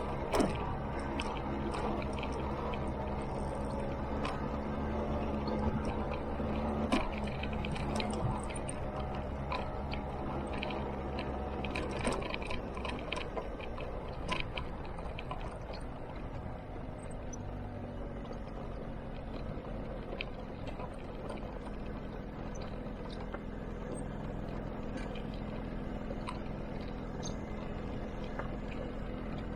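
Scooter engine running steadily while riding, with scattered clicks and knocks in the first half; the engine note shifts about twelve seconds in.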